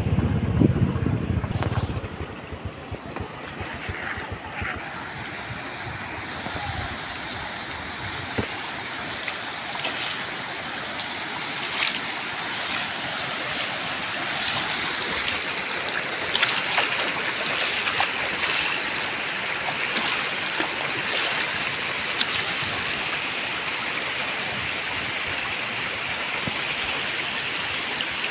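Floodwater rushing across a dirt road, a steady noisy flow that grows a little louder as it goes on. For the first two seconds a motorcycle engine runs underneath, then it cuts off.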